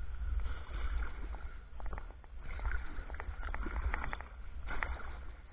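Kayak being paddled with a wooden Greenland paddle: the blade dipping and splashing in the water in uneven surges, with scattered drips and sharp ticks, over a steady low rumble.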